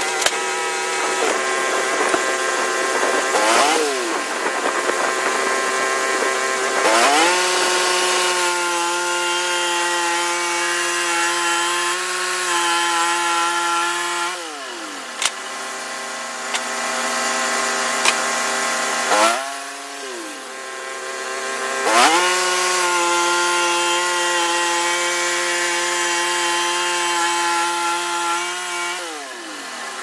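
Portable band sawmill running as its blade cuts pine logs. The engine note drops away and climbs back up several times as the saw is throttled down and brought back up between passes.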